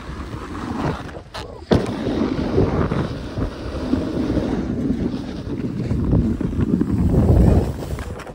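Wind buffeting the microphone: a steady low rushing rumble. It drops out for about half a second just after a second in, then comes back suddenly.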